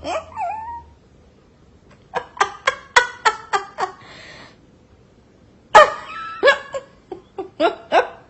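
An animal giving quick runs of short, high calls, several a second, each dipping in pitch: one run about two seconds in and another from about six seconds in.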